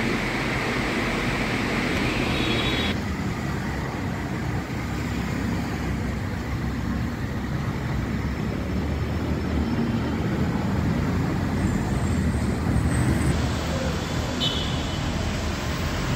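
Steady city road traffic noise: passing cars, buses and autorickshaws, with a change in the sound about three seconds in as the scene moves outdoors.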